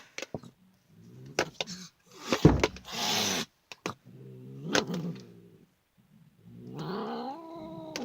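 Angry domestic cat growling in low drawn-out moans, with a loud spitting hiss about two to three seconds in and a longer wavering yowl near the end.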